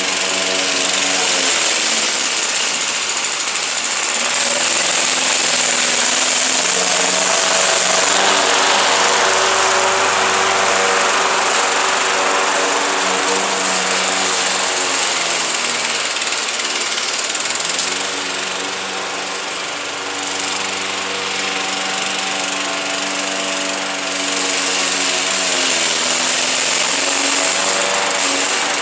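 Craftsman 21-inch push mower's Briggs & Stratton 550 series 140cc single-cylinder engine running as the mower cuts thick, overgrown grass. Its pitch sags and picks back up several times as the blade takes on heavy grass.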